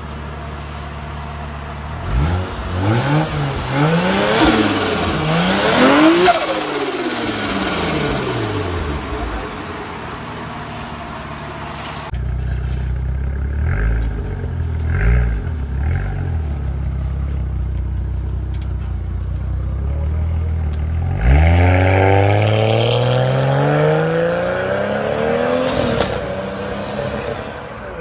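Toyota Corona TT132's swapped 1JZ-GTE turbocharged straight-six idling, then revved: a few quick rising and falling blips, two short blips after a steady idle, and one long climbing rev near the end that falls back to idle, with turbo flutter on lifting off the throttle.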